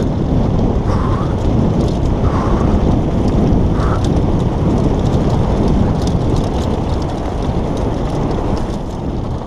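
Wind buffeting a helmet-mounted camera's microphone as a downhill mountain bike rolls fast over rocky grass, with scattered ticks and rattles from the tyres and bike on stones. The rush eases slightly near the end as the bike slows.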